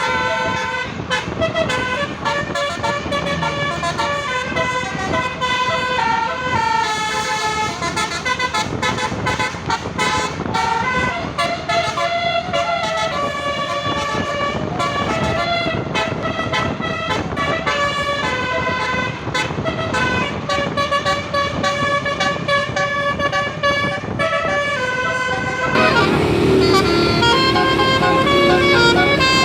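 Indonesian bus's 12-note Basuri 'telolet' horn with roof-mounted trumpets, playing a continuous melody of quick stepped notes. It grows louder and fuller near the end.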